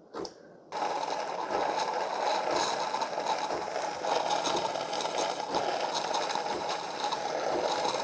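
Amazon Commercial Barista espresso machine's water pump pulsing as it pushes fresh water through during the rinse stage of its descale cycle. A steady mechanical pulsing sound that starts just under a second in.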